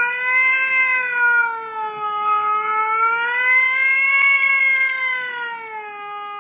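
A grey Scottish Fold cat giving one long, unbroken meow whose pitch slowly rises and falls, fading toward the end.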